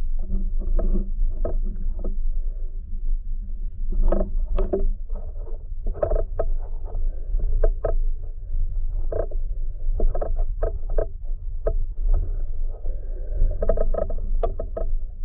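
Muffled underwater sound picked up by a submerged camera: a steady low rumble, with irregular knocks and crackles as the diver moves through the water.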